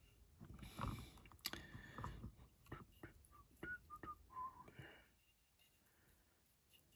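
Faint knocks and rustling of small objects being handled at a workbench, with a few brief high notes stepping down in pitch in the middle; it falls quiet for the last two seconds.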